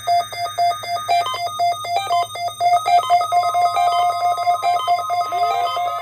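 NOAA Weather Radio weekly-test alert signals: rapid electronic beeping, about eight beeps a second stepping between a few pitches, the sound of a weather radio receiver set off by the test. The steady 1050 Hz warning alarm tone joins about three seconds in, and a rising wail starts near the end.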